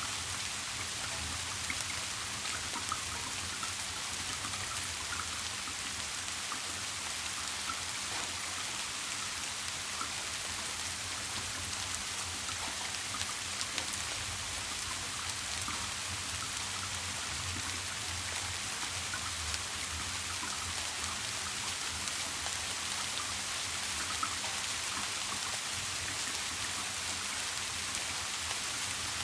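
Steady rain falling, a dense even patter of raindrops, with a faint low hum underneath.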